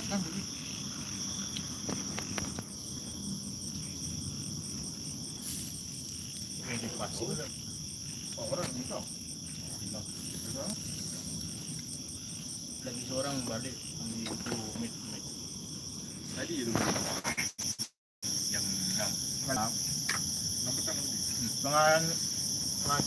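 Crickets chirping in a continuous high trill with a faster pulsing band above it, while faint voices talk at times in the background.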